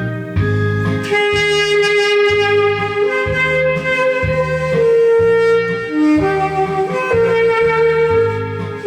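Alto saxophone playing a slow melody in long held notes over a backing track with a steady bass beat.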